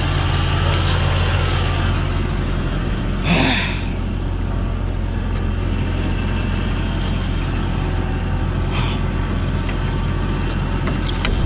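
Vehicle engine idling steadily, with a snow brush swept hard across packed snow about three seconds in and again, more lightly, near nine seconds.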